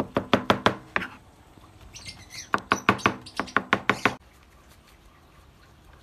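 Cleaver chopping rapidly through mashed purple yam onto a cutting board, about six or seven knocks a second in two runs, as the yam is minced into a soft, sticky paste. The chopping stops suddenly about four seconds in.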